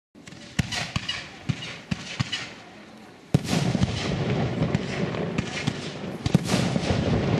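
Fireworks display: a handful of sharp bangs about half a second apart, then a loud bang a little under halfway through, followed by a dense, continuous crackle with rapid bangs mixed in.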